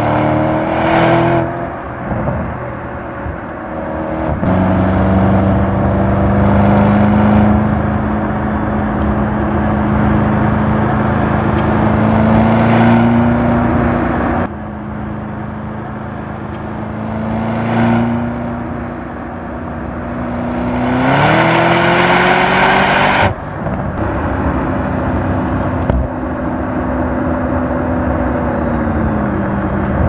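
2025 Audi RS Q8 Performance's twin-turbo V8 and exhaust running under way, the engine note holding steady for long stretches, then climbing and dropping back. The sound changes abruptly twice, about halfway through and again about three quarters of the way in.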